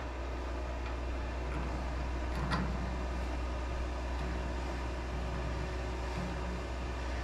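Steady low engine rumble, with a single knock about two and a half seconds in.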